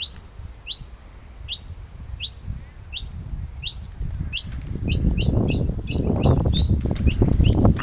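Noisy miner giving short, sharp, high downward-sweeping calls, repeated a little more than once a second and quickening to two or three a second about halfway through. A low rumble builds underneath from about halfway through.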